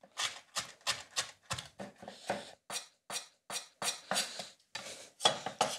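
Kitchen knife finely chopping kimchi, a quick, uneven run of strokes about three a second.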